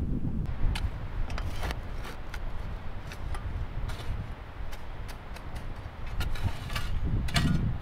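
A shovel digging into grassy soil, its blade cutting in and scraping and knocking against stones in short, irregular strikes, over a steady low rumble.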